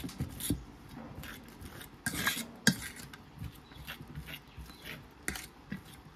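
A metal fork mashing boiled potato on an enamel plate: irregular soft scrapes and sharper clinks as the tines hit the plate.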